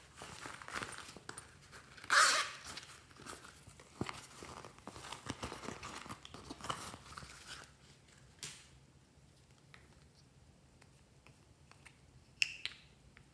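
A pencil case zipper pulled open, with the loudest rasp about two seconds in, then rustling and handling as hands rummage inside and take out a small plastic tube. A plastic cap clicks off near the end.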